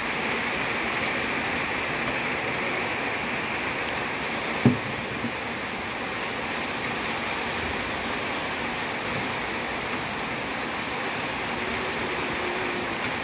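Steady rain falling, an even hiss, with one sharp knock about four and a half seconds in.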